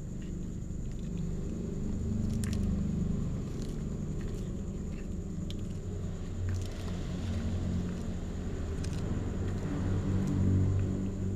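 Two cats chewing fried fish close up, with a few sharp crunches of bone and crust, over a continuous low rumble.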